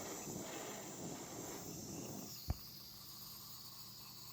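Butane hissing from a Weller Pyropen WPA2 butane soldering iron: a steady high hiss that appears when the iron is tilted, which the owner suspects is a gas leak. A sharp click comes about two and a half seconds in, after which the hiss drops lower and quieter.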